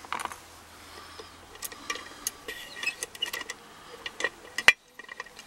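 Light metallic clicks and taps of lock picking tools and an opened brass padlock being handled, scattered and irregular, with one sharper click a little before the end.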